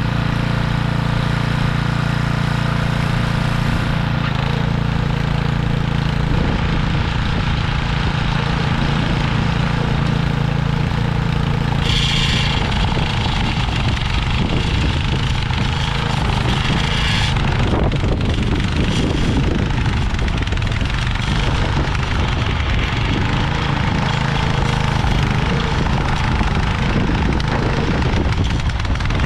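Little Wonder bed edger's small gas engine running steadily at full throttle, its throttle cable wired fixed at wide open, as it cuts a bed edge. A harsher hiss joins the engine for about five seconds partway through.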